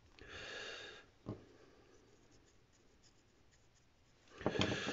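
Hand handling a screwdriver on a wooden desk: a short scratchy rub, a single click about a second in, then another scratchy rub with a couple of clicks near the end.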